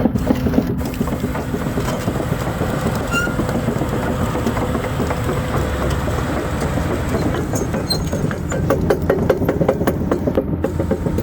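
Hyundai excavator's diesel engine running steadily, with a quick run of clicks or rattles in the last few seconds.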